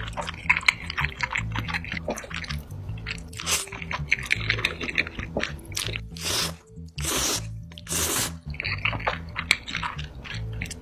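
Close-miked eating sounds: chewing with crunchy bites, and three longer noisy bursts between about six and eight seconds in. Background music with a steady beat plays underneath.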